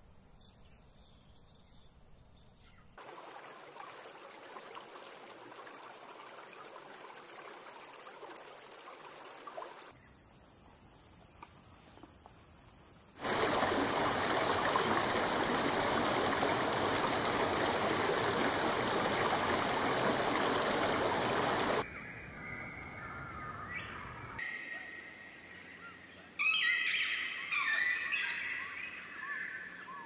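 Nature ambience that changes in several stretches: a steady rush of water-like noise, loudest in the middle, then a run of chirping bird calls near the end.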